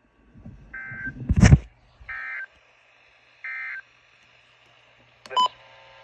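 Three short, screechy digital data bursts, the end-of-message code of an Emergency Alert System broadcast, played through a Midland weather radio and spaced about 1.3 s apart; they close the tornado warning. A loud thump comes about a second and a half in, and near the end there is a short beep as a button on the radio is pressed.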